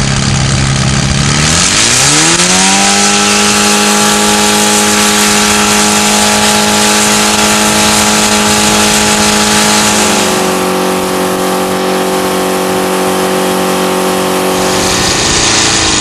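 An old Toyota Camry's engine revving up about two seconds in and then held at a steady high speed, being run flat out to destroy it. The pitch dips slightly around ten seconds in and starts to fall near the end.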